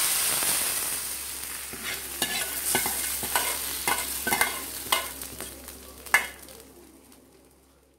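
Hot tempering oil with mustard seeds, fenugreek, dried red chillies and curry leaves sizzling loudly as it hits the sambar. The hiss fades away over several seconds, with scattered pops and crackles.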